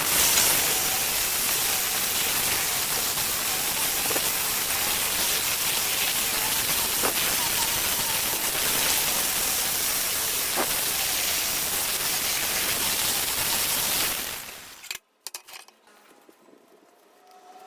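Stick welding arc hissing and crackling steadily, then cutting off sharply near the end as the arc is broken.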